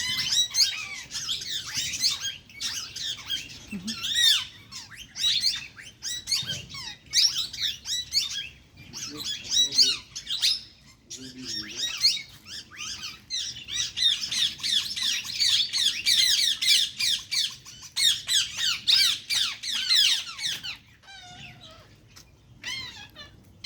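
Many small birds chirping and twittering together in a dense, overlapping chorus of quick high calls, thinning to a few scattered calls near the end.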